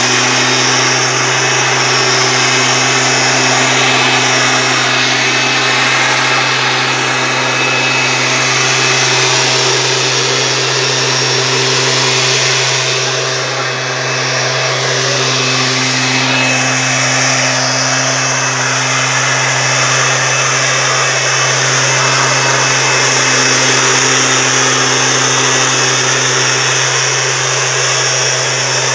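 Stihl SR 5600 backpack mist blower's two-stroke engine and fan running steadily at high speed, with a brief small dip in level about halfway through.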